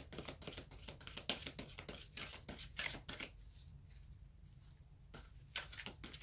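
Tarot cards (The Good Tarot deck) being shuffled overhand by hand, a quick run of soft card slaps and slides. It pauses for about two seconds past the halfway point and resumes near the end.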